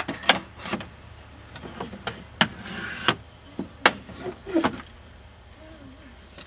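Wooden members of a quarter-scale hinged folding roof frame knocking and clacking together as the frame is folded up by hand. About a dozen sharp wooden knocks come in quick succession with a brief scrape among them, and they stop about five seconds in.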